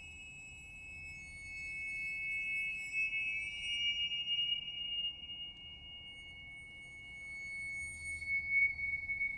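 Tibetan finger cymbals (tingsha) ringing in long, high, bell-like tones that swell and fade slowly, with a fresh ring of high overtones about two seconds before the end.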